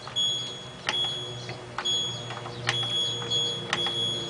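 Control panel of an LG F1222TD washing machine beeping as its button is pressed repeatedly to change the spin speed setting: a string of short high beeps about once a second, each with a sharp button click.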